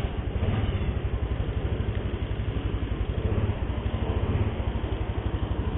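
Motor scooter's small engine idling with a fast, even putter.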